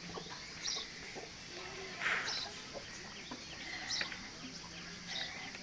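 Short bird calls repeated about every one and a half seconds, with a brief noise about two seconds in.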